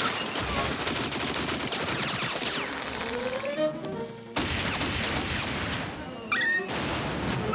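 Cartoon sound effects of rapid ray-gun fire and explosions: a dense crackle of shots over background music, breaking off briefly about four seconds in before starting again.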